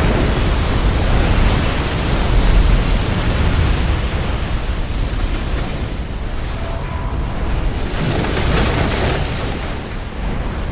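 Tornado wind blowing hard against the microphone: a loud, continuous rush of noise over a heavy low rumble that swells and eases without any clear rhythm.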